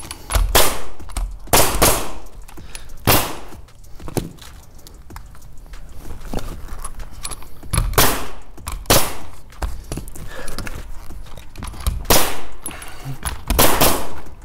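Pneumatic roofing nailer firing nails through starter-strip asphalt shingles into the roof deck: a string of single sharp shots, each a second or more apart, with a pause of several seconds in the middle.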